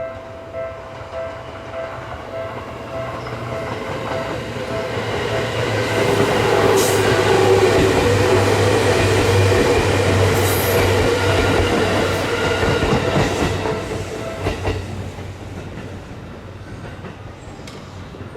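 A Seibu Tamako Line train passes a Japanese level crossing while the crossing's warning bell dings a little under twice a second. The train's rumble and low motor hum swell over a few seconds, peak with a few clacks from the wheels on the rails, then fade away. The bell is buried under the passing train.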